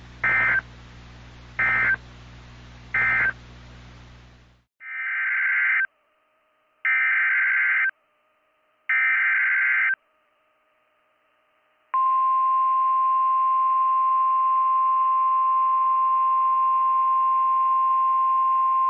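Emergency Alert System data tones off NOAA Weather Radio: three short end-of-message bursts over a low radio hum, then three harsh buzzing header bursts of about a second each that open the next alert. About twelve seconds in, the steady 1050 Hz Weather Radio warning alarm tone starts and holds.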